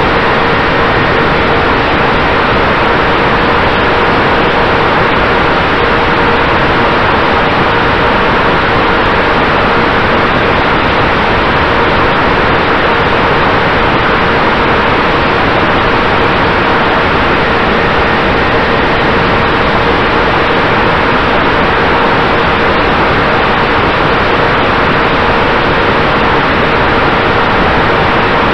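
Loud, steady hiss with a few faint, unchanging hum tones beneath it, heard through the FPV plane's onboard audio. It does not change as the plane banks and rolls.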